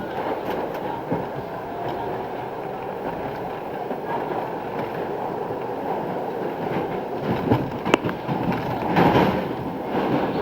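R62A subway car running along the track, a steady rumble of wheels on rail with sharp clacks over the rail joints. A louder clack comes about eight seconds in, followed by a brief swell in the noise.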